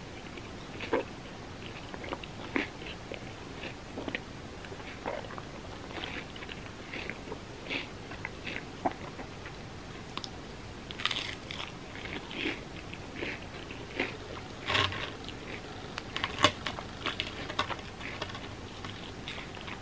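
Close-miked chewing of crispy fried mochi bread: irregular crisp crunches and bites all through, with louder runs of crunching past the middle.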